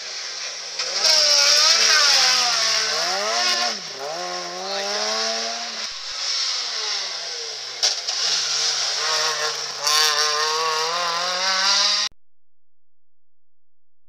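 Two small hatchback rally cars passing one after the other at stage speed, the second a Fiat Seicento, their engines revving hard with pitch rising and falling through gear changes and lifts for the bend. The sound cuts off suddenly about twelve seconds in.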